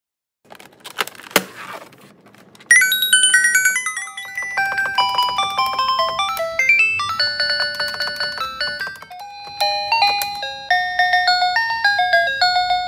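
Children's toy learning laptop playing a buzzy electronic beeping melody through its small speaker, quick single notes stepping up and down. It starts about three seconds in, after some handling noise and a sharp click.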